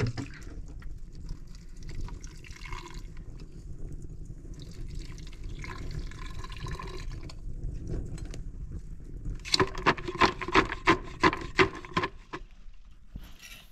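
Cooking over a wood fire: a liquid sound, then a quick run of about eight knocks, roughly three a second, each with a short metallic ring, as a wooden stick is worked in a metal ladle.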